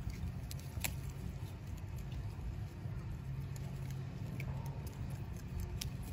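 Ring-tailed lemurs chewing and pulling at leaves close by: scattered crisp clicks and rustles over a steady low rumble.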